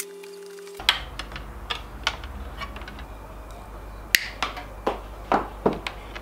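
Irregular sharp clicks and snaps of side cutters and red power cable being handled and cut, the loudest snap about four seconds in.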